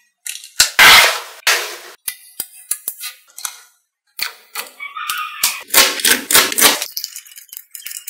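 Small magnetic balls clicking and snapping together, with many sharp clicks and two louder clattering rushes, about a second in and again around six seconds, as runs of balls snap onto each other at once.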